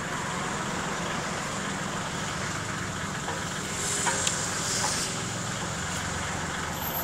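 Kioti tractor-backhoe diesel engine running steadily, with a brief hiss and a couple of light knocks about four seconds in.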